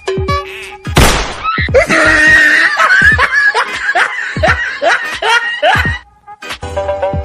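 Laughter: a run of falling 'ha' laughs, about two and a half a second, after a brief rush of noise about a second in. Music starts near the end.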